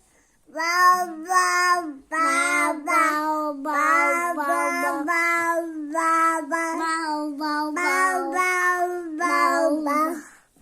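A baby or young child vocalizing in sing-song tones: a string of high held notes with short breaks between them, starting about half a second in.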